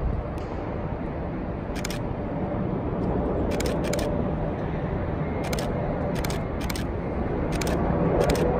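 GE90 jet engines of a Boeing 777-300ER on final approach heard from a distance: a steady rumble with a faint whine that grows a little louder near the end. About eight sharp camera shutter clicks sound over it.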